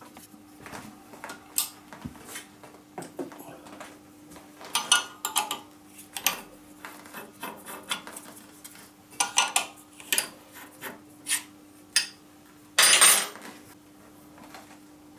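Scattered light metal clinks and clicks as a sharpened end mill is handled in its collet fixture and taken out, with a faint steady hum underneath. There is a brief louder rubbing rush near the end.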